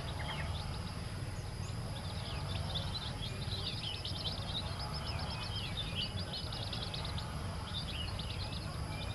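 Newly hatched chicks peeping continuously: many short, high chirps, mostly falling in pitch, overlapping from several birds. A steady low rumble runs underneath.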